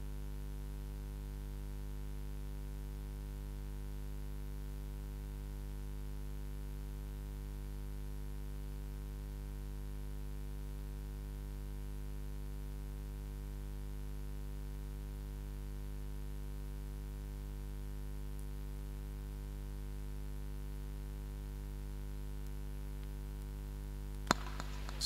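Steady electrical mains hum and buzz, unchanging throughout, with a sharp click near the end followed by crackling.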